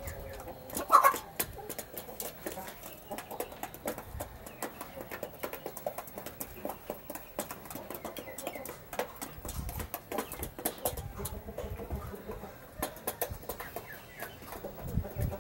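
Chickens pecking feed off a dirt floor, with many quick sharp pecking ticks and a short cluck about a second in. A few dull low thumps sound in the second half.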